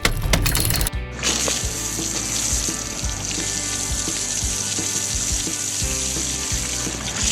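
Cartoon sound effect of a water jet spraying: a steady hiss that starts about a second in and holds, over light background music.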